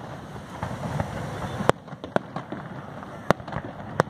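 Fireworks display: aerial shells bursting in a run of about four sharp bangs, the loudest a little under two seconds in, over a continuous low rumble and crackle of further firings.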